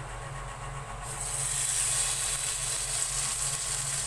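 Masala-coated pomfret laid into hot oil on a nonstick tawa: the oil starts to sizzle suddenly about a second in, then sizzles steadily as the fish fries.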